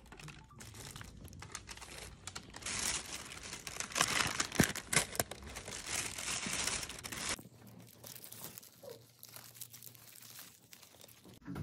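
Thin plastic carrier bag crinkling and rustling as it is opened and rummaged through. About seven seconds in the crinkling drops to softer, sparse handling rustle.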